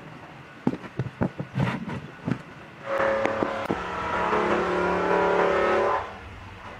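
A few sharp knocks and taps, then a loud, steady, engine-like motor sound that starts about three seconds in and stops about three seconds later.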